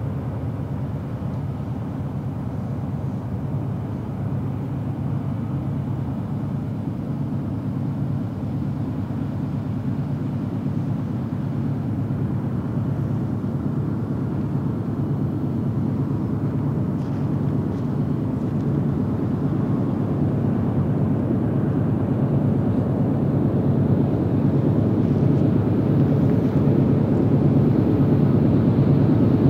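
GE C44-9W diesel-electric locomotives, with 16-cylinder GE 7FDL engines, running at the head of a double-stack container train: a steady low engine drone that grows gradually louder as the train approaches.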